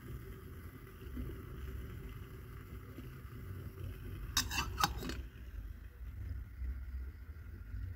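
A quick run of metallic clinks about halfway through as a stainless steel mug is set down onto a soda-can alcohol stove, over a steady low rumble.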